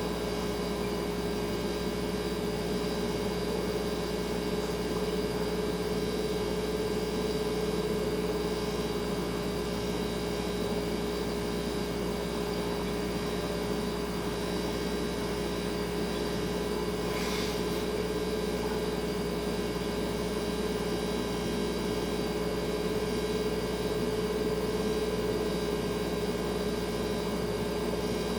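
Refrigerator running with a steady electrical hum: one clear mid-pitched tone over a low drone and a soft hiss. A brief faint high tick comes about two-thirds of the way through.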